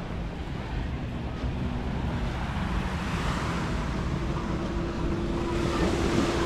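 Wind rumbling on the microphone over a broad background hiss, with a steady low hum joining about four seconds in.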